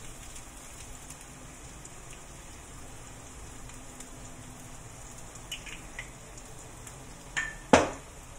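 Minced meat and chilli paste frying gently in oil in a wok, a low steady sizzle. Near the end come two sharp knocks, the loudest sounds.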